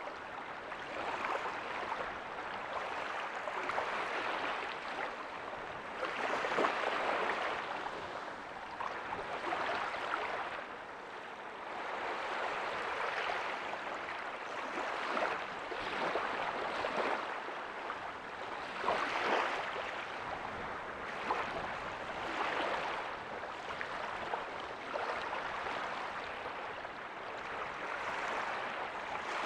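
Ocean waves breaking softly and washing up a beach: a steady rush of surf that swells and eases about every three seconds.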